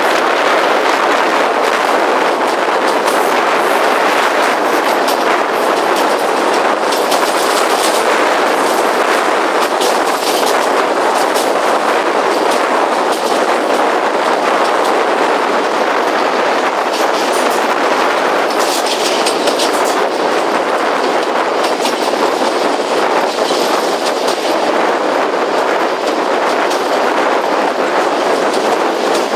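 A train running along the track, heard from a carriage window: a steady rolling rush with occasional clicks of the wheels over the rails.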